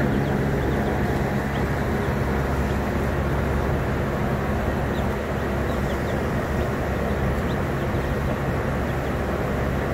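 A steady low hum with a rush of noise, unchanging throughout. Faint, short high peeps from chicks are scattered through it.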